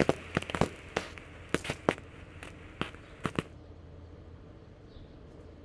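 Last scattered pops and crackles from two spent novelty firework tanks, sharp single cracks coming further apart and stopping about three and a half seconds in.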